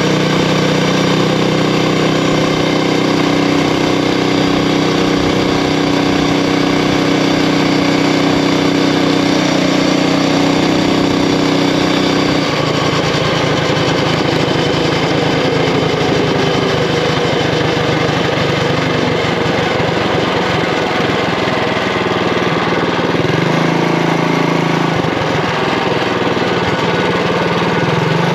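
Predator Ghost 212cc single-cylinder four-stroke engine on a mini bike running at a steady note for about twelve seconds. The note then drops and turns rougher and uneven, steadying again for short stretches near the end.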